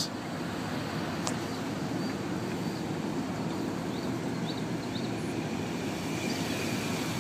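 Steady low rumble of a vehicle engine idling outdoors.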